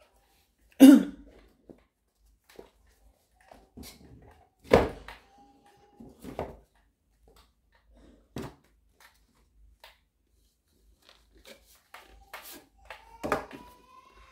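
Scattered knocks and thuds of watches and a cardboard watch box being handled on a table, the loudest about a second in and a cluster near the end as the box is set down.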